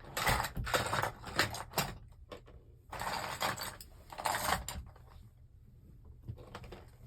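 Small plastic Lego pieces clicking and rattling against each other as they are rummaged through, in bursts that fade after about five seconds.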